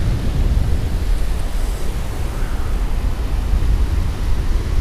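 Strong wind buffeting the camera microphone: a loud, uneven low rumble, with breaking surf underneath.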